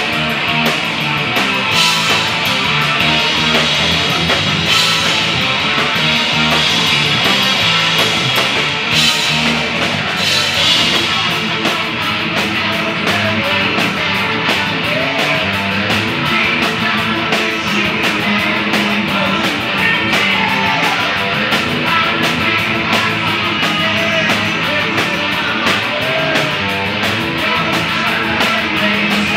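A live rock band playing loud: electric guitars, bass guitar and a drum kit. Several cymbal crashes come in the first ten seconds, then a fast, driving beat.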